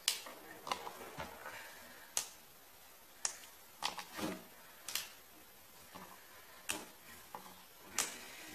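Wax candles being snapped into small pieces by hand: about a dozen sharp, irregular clicks and snaps.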